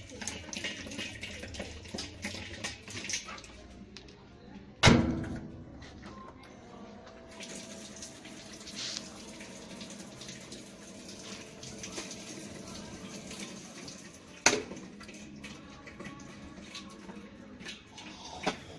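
Water running into a washing machine's tub, as it fills. Three sharp knocks break in, the loudest about five seconds in and the others near the middle and the end.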